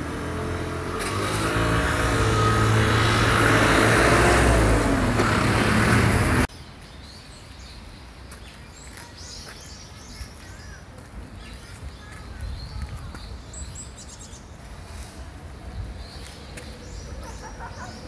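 A motor vehicle's engine runs close by, growing louder, and cuts off abruptly about six seconds in. After that, birds chirp in scattered short calls over quiet outdoor background.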